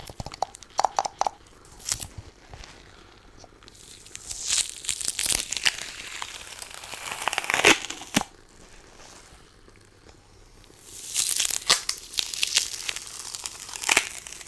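Sticky tape of a lint roller crackling and tearing as it is pulled over a surface, in two long stretches with a lull between them. A run of quick taps comes at the very start.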